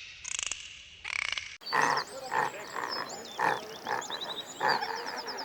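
Animal calls: a few short calls, then after an abrupt cut about a second and a half in, a run of repeated croaking or grunting calls with birds chirping behind them.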